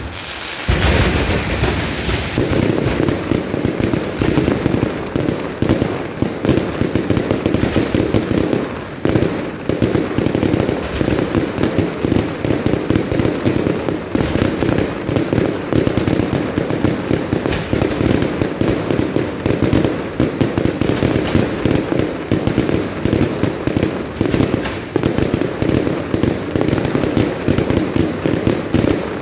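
Fireworks display: a dense, continuous barrage of rapid bangs and crackles, many per second, with a brief lull about nine seconds in.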